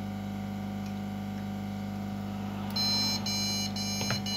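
Motherboard speaker giving POST beeps: about five short, high beeps in quick succession, starting a little over two and a half seconds in, over a steady low hum. This is the ASRock B85M Pro4 board's beep code, which the repairer hears as a sign of a memory problem.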